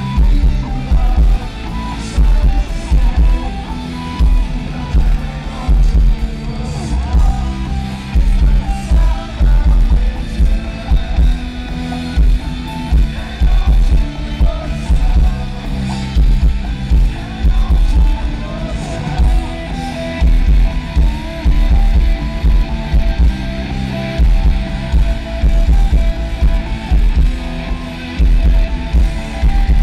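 Rock band playing live: electric guitars and a drum kit with a steady beat, loud, as heard from the crowd in an arena.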